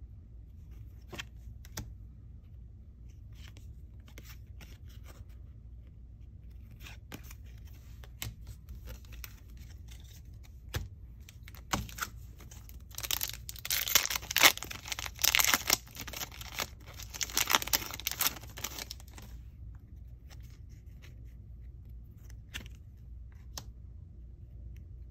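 A trading card pack's foil wrapper being torn open and crinkled, loud and ragged for about six seconds around the middle. Before and after it come light clicks and rustles of the cards being handled.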